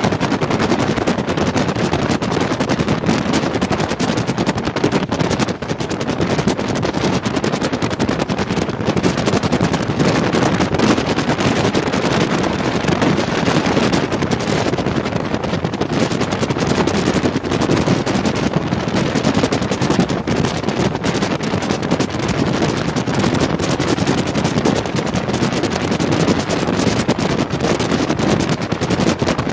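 Regional train of n-Wagen coaches hauled by a Class 185 electric locomotive running at speed: a steady rush of wind and running noise with a dense, rapid crackling rattle.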